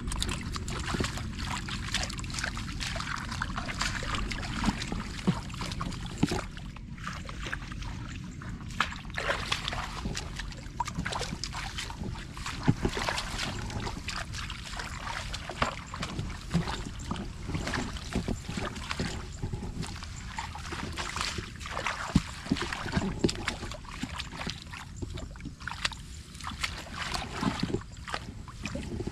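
Water sloshing and splashing in a shallow muddy pool as hands grope through it for fish, with many irregular small splashes and clicks and no steady rhythm.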